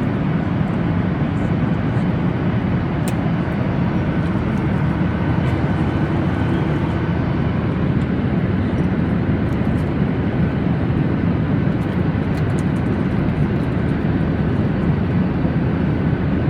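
Steady cabin drone of a Boeing 737-800 in flight: engine and airflow noise heard from inside the passenger cabin, a constant low rumble with a faint high whine over it.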